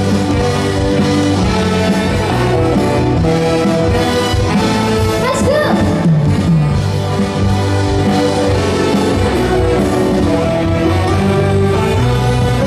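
Live band playing the instrumental introduction of a trot song, with steady bass and sustained melody notes.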